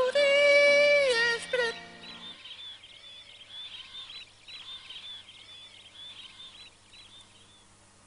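A high sung note held over a steady keyboard chord, sliding down and breaking off about a second and a half in. Then comes a run of repeated high, bird-like chirping whistles that fade out near the end.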